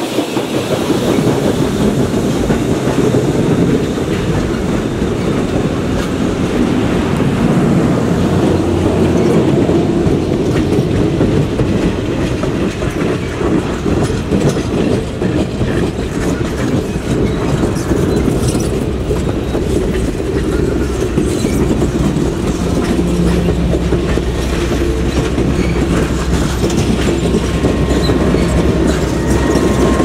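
Passenger cars of a train rolling past close by, their wheels clacking over the rail joints. Over the last several seconds a steady low engine drone builds as the trailing diesel locomotive comes alongside.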